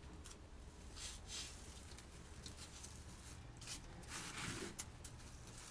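Hands brushing and scattering gritty compost mixed with perlite over a plastic module tray, a few short scratchy rustles, with one sharp click a little before the end.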